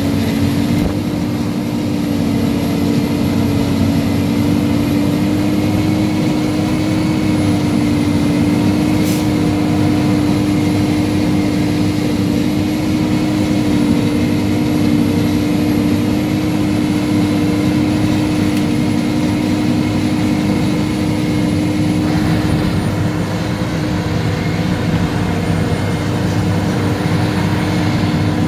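Versatile RSM 1403 self-propelled forage harvester working under load, its engine and chopper running with a steady, even drone as it cuts standing green crop and blows it into a trailer, a tractor running alongside.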